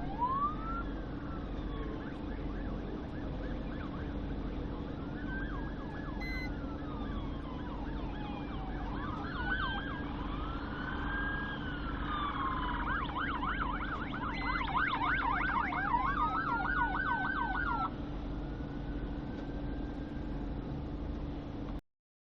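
Emergency vehicle sirens approaching: several wails rise and fall over one another, and a fast yelp runs for several seconds past the middle, all over a steady low hum. The sound cuts off abruptly near the end.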